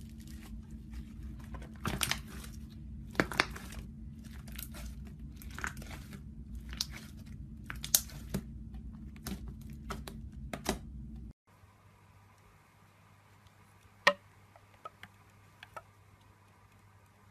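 Slime being pressed and squeezed by hand, with a dense run of irregular crackling pops as air pockets burst. About 11 seconds in the sound cuts to a quieter clip with only a few scattered pops, one of them sharp and loud.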